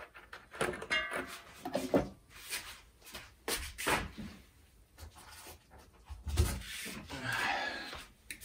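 Irregular scraping, rubbing and knocking of hands and tools on a Tesla ARM 9408 loudspeaker being taken apart to reach its voice coil, with a longer scrape near the end.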